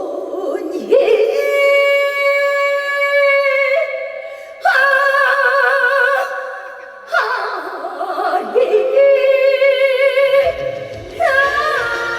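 A woman singing long, held notes with strong vibrato in a Korean trot and folk style, with little or no accompaniment; low band accompaniment comes in about ten seconds in.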